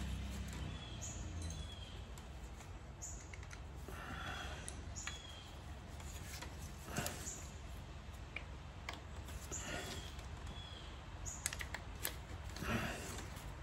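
Short high chirps repeating every second or two, the kind a small songbird makes, over a low hum, with a few faint clicks and rustles of small parts being handled.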